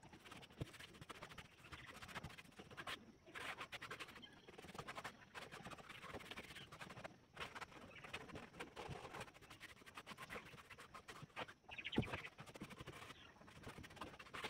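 Faint, irregular scrubbing strokes of a rag rubbed over a wooden board, wiping on a dark finish from a tin.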